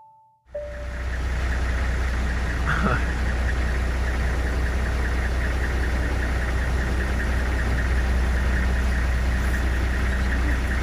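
Safari vehicle's engine idling steadily with a low rumble, heard from inside the cab while the vehicle is stopped; it comes in about half a second in, as the intro music ends.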